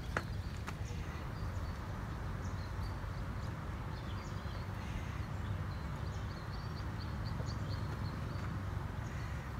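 Steady outdoor background noise with a low rumble, and faint short bird chirps scattered through it, including a quick run of them about five seconds in.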